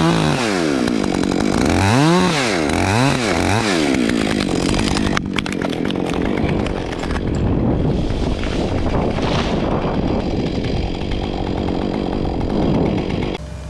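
Gasoline chainsaw revving up and down three times, then running steadily under load as it cuts into wood, stopping shortly before the end.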